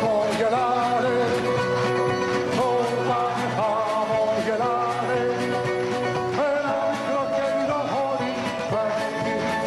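A song: a singing voice holding long, wavering melodic notes over instrumental accompaniment.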